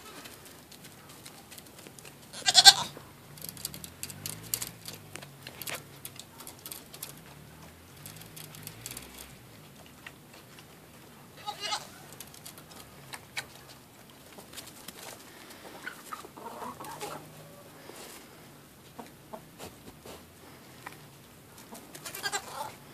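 A young goat bleating three times, the first and loudest about three seconds in, another midway and one near the end. Between the bleats, hens cluck softly and small clicks come and go.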